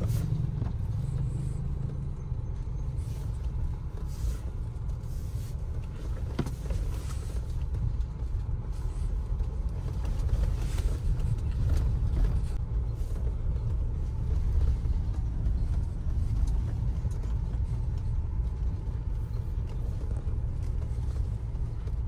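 Road and engine noise inside the cabin of a moving Mahindra Scorpio N SUV: a steady low rumble.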